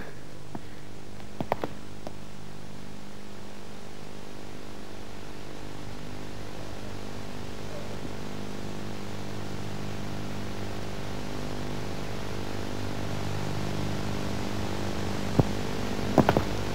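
Steady hiss and low electrical hum from an old videotape soundtrack, with a few faint clicks early and a cluster of footstep taps on pavement near the end.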